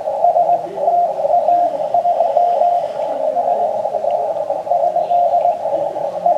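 Morse code (CW) signal coming from a Yaesu FT-857 HF transceiver on the 40-metre band: one steady tone keyed in dots and dashes, heard through the narrow CW filter amid hissing band noise.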